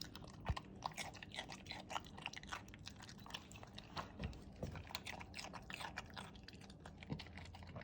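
A senior dog chewing and eating food, with irregular wet mouth clicks and smacks several times a second and a sharper knock about half a second in.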